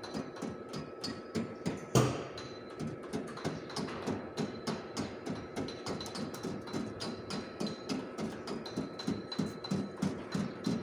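A body hammer tapping on sheet-metal body panel in a quick, even rhythm of about four blows a second, with one harder blow about two seconds in: panel-beating work to straighten a dented front panel.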